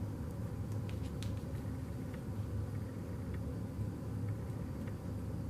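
Faint, scattered small clicks of wires and clip leads being handled, over a steady low background hum.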